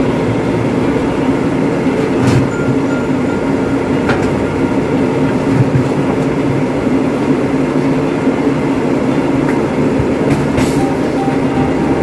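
A loud, steady rumbling machine-like noise runs throughout. Over it come a few short knocks and clatters, about two and four seconds in and again near the end, as a small countertop oven is taken down from a wall cabinet.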